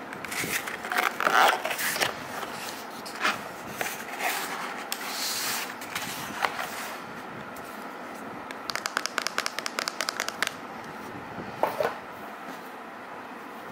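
Cardboard scraping and rustling as a shipping box is torn open and its flaps are folded back, then a quick run of small ticks and a single soft knock, as of the boxed phone being set down on a wooden table.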